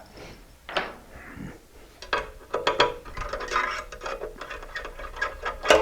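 Small metal clicks and clinks of a T-handle Allen wrench and billet clamp parts being handled as Allen bolts are taken out of a clamp, in a quick irregular run from about two seconds in.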